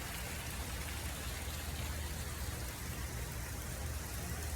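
Fountain water falling and splashing into its pool: a steady, even rushing patter.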